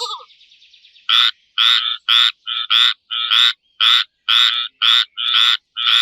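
Frog croaking in a fast series of short, loud, evenly spaced calls, about two a second, beginning about a second in.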